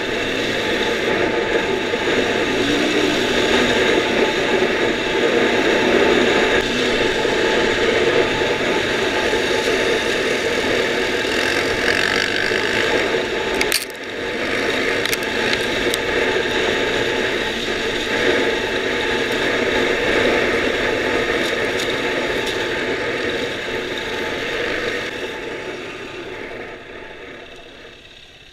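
Dirt bike engine running hard along a sandy track, with rattling from the bike, and a brief dip about halfway through. Over the last few seconds the throttle closes and the sound falls away as the bike slows to a stop.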